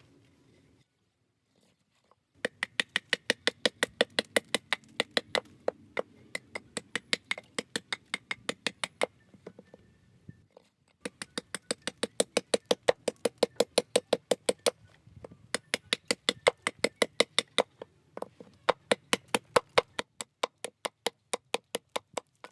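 A mallet tapping a carving chisel in quick, even strokes, about four or five a second, in four runs with short pauses between them, hollowing wood by hand.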